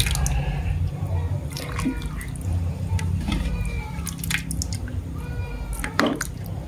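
Kolak, a coconut-milk broth with chunks of sweet potato and pumpkin, dripping and splashing as a plastic ladle scoops it from a pot and pours it into a bowl. Scattered light clicks come from the ladle against the pot and bowl.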